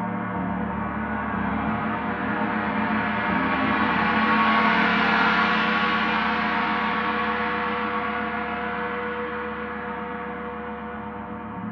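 Paiste Saturn planet gong, tuned to D at 147.85 Hz, sounding a dense wash of overtones that builds to a peak about halfway through and then dies back down.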